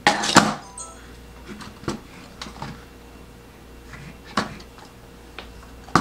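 Plastic housing of a Blaux Classic mini USB air cooler being handled and pulled apart: a sharp clatter at the start, then scattered light clicks and knocks.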